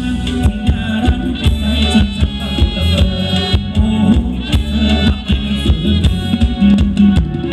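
Live band playing a Thai ramwong dance song, with a singer over a steady percussion beat.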